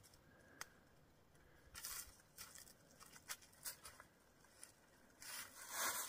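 Faint crunching and rustling of dry fallen leaves as a person scrambles up a steep leaf-covered bank on hands and feet. It comes in scattered short bursts, with a longer, louder rustle near the end.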